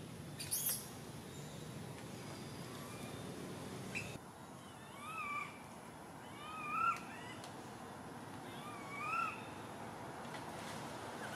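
Baby macaque crying: three short coo calls a second or two apart, each rising then falling in pitch, with a brief high squeak about half a second in.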